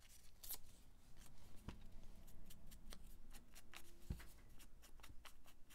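Hands handling and tearing brown paper: faint crisp rustles and small ticks, with two soft knocks, the louder one about four seconds in.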